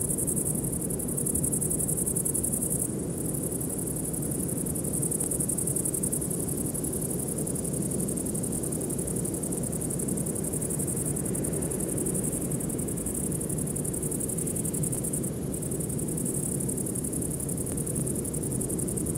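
Steady ambient background soundtrack: a low, even drone with a constant high hiss over it, without clear beats or notes.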